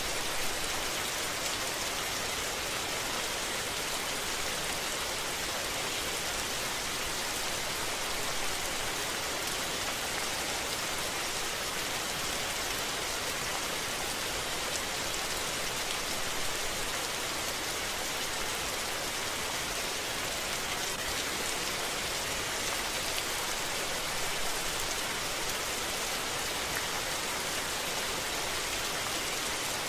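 Steady, even rain, a dense hiss of falling drops that stays constant throughout.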